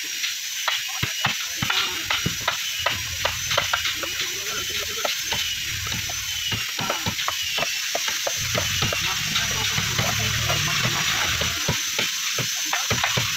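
Hand tools knocking on wood: irregular, quick taps of hammers on chisels and timber as the planks of a wooden boat are cut and fitted, over a steady hiss.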